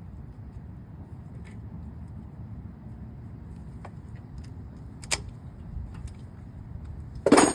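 Light clicks and a loud short clatter near the end from hand tools and brake parts being handled, over a steady low background rumble.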